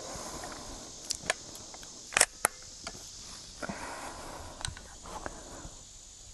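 Seneca Dragon Claw .50 caliber PCP air rifle being readied for the next shot: sharp clicks from working the cocking handle and loading, loudest as two clicks about a quarter-second apart a little over two seconds in, followed by softer handling noise as the rifle is shouldered.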